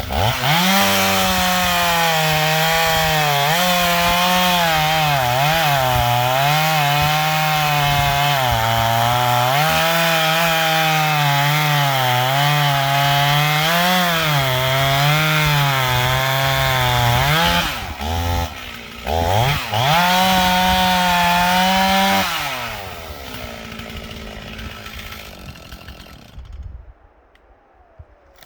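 Stihl 044 two-stroke chainsaw at full throttle cutting through a log, its pitch dipping and recovering as the chain loads in the wood. About 18 s in the throttle drops and comes back briefly, then near 22 s the saw falls back off throttle and fades out.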